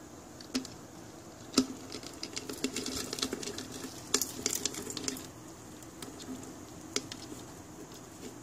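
Irregular light clicks and scratchy rustling against a clear plastic container, with a few sharp ticks and a busy crackling stretch in the middle, as a katydid seizes another katydid inside it.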